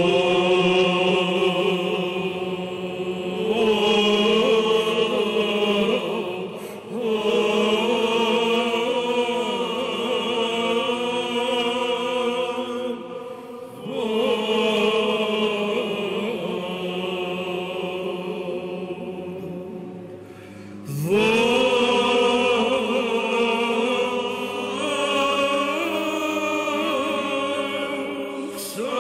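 Byzantine chant sung by a choir of chanters in four long sustained phrases, with brief breaks between them.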